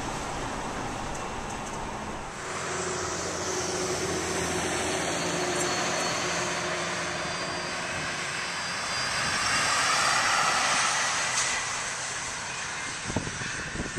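Paratransit shuttle bus on the road: cab ride noise for the first two seconds, then the bus heard from the roadside as it approaches and passes, its tyre and drivetrain noise swelling to a peak about ten seconds in and fading away, with a faint steady whine.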